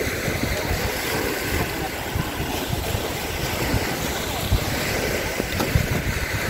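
Wind buffeting the microphone in uneven gusts, over the steady wash of surf on the beach.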